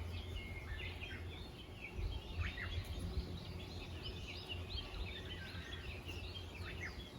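Small birds chirping, many short quick calls overlapping one another, over a low steady hum, with a few faint low knocks about two to three seconds in.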